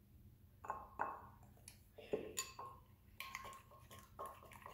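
A nearly empty glitter glue bottle squeezed out over a bowl with a few separate clicks. From about three seconds in, a plastic spoon stirs runny, unset slime and clicks rapidly against the side of the bowl.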